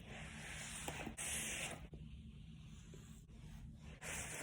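Soft rustling and rubbing of a squishy fidget toy being squeezed and stretched in the hands, in short stretches with a quieter pause in the middle.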